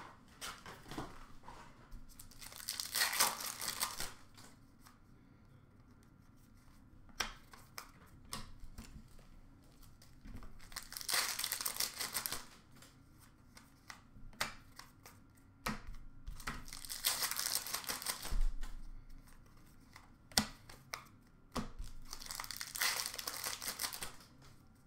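Hockey card pack wrappers being torn open and crinkled by hand, in four bursts of tearing about six seconds apart. Between them come small clicks and taps of cards being handled.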